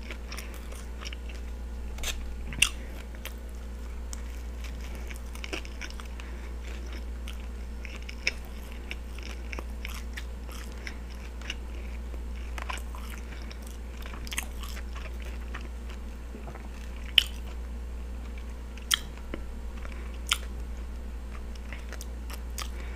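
Close-miked chewing of a steak and cheese sub on a soft roll, with sharp wet mouth clicks every few seconds. A steady low hum sits underneath.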